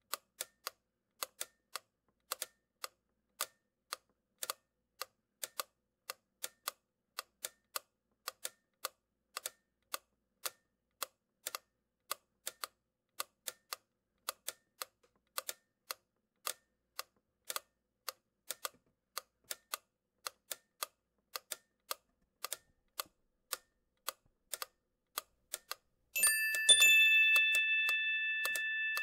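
A run of sharp, slightly uneven clicks, about two a second, like typewriter keystrokes. Near the end a bell is struck and rings on, fading slowly.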